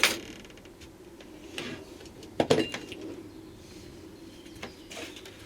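A few scattered knocks and clunks, the loudest about two and a half seconds in, over a faint steady hum.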